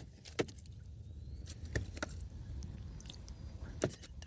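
A few separate sharp knocks and clicks, about four, over a low steady rumble.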